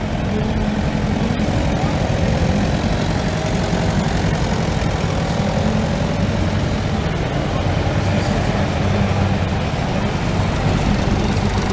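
Engines of vintage tractors running at low speed as the tractors drive past one after another, a steady low engine note.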